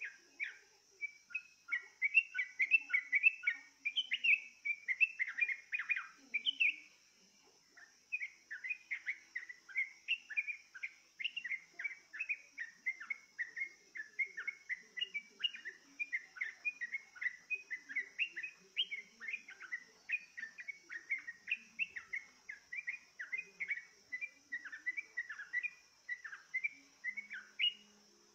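Yellow-vented bulbul (trucukan) song played as a lure: a long run of quick, chirpy notes with a short pause about seven seconds in. A faint steady high insect-like hiss runs underneath.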